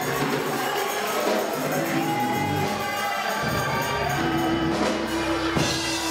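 Gospel choir singing with instrumental accompaniment, sustained low bass notes under the voices.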